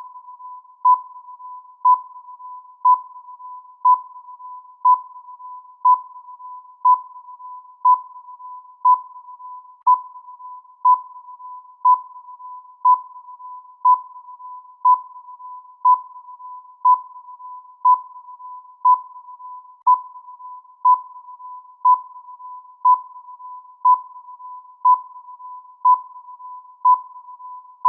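Electronic countdown-timer sound effect: a short, high beep once every second over a quieter steady tone of the same pitch, ticking off the seconds.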